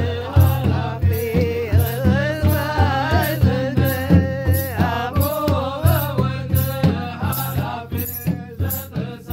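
Singing over a steady drum beat of about three strokes a second, with rattling percussion on top.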